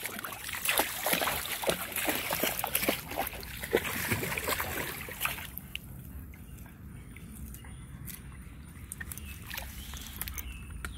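A dog splashing and wading through shallow creek water, busy for about the first five seconds, then softer sloshing as it stands in the water holding a stick, with a few more splashes near the end.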